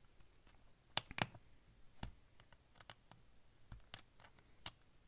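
Small, scattered clicks and taps of a hex driver working the tiny screws of a 1.0-scale RC beadlock wheel, as the screws are snugged down a little at a time. The clicks come irregularly, with a sharper pair about a second in.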